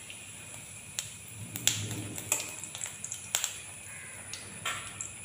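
Cumin seeds and dried red chillies frying in hot oil in an aluminium kadhai: a faint steady sizzle with scattered sharp pops, the loudest about a second and a half in. This is the tadka stage, the whole spices tempering in the oil.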